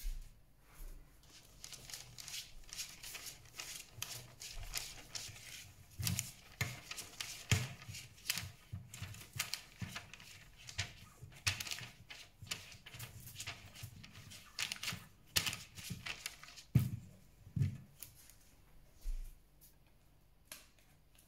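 Silicone pastry brush swishing and scraping over parchment paper in a metal springform pan, spreading melted butter in many quick strokes. A few louder knocks come in among the strokes, two of them close together late on, before the brushing stops near the end.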